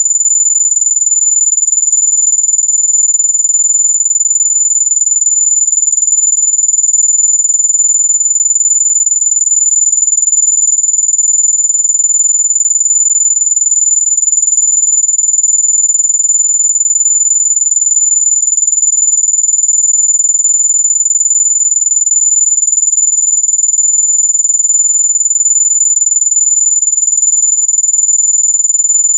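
Electronic mosquito-repellent tone: one very high-pitched pure whine held perfectly steady in pitch and loudness. It is the kind of tone claimed to keep mosquitoes away.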